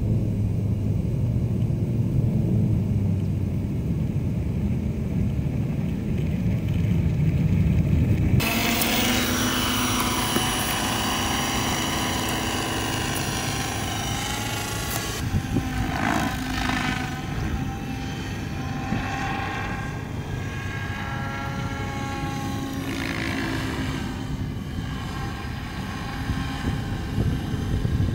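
SAB Goblin Kraken 580 electric RC helicopter flying: rotor blades and motor whine whose pitch sweeps up and down as it manoeuvres. For about the first eight seconds it is a lower, duller rumble, then it switches suddenly to a brighter, whining sound.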